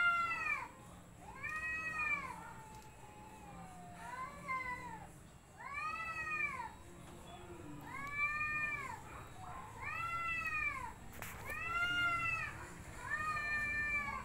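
Street cats in a face-off yowling: long drawn-out calls that rise and fall in pitch, repeated about every two seconds. These are the threat yowls of a standoff before a fight.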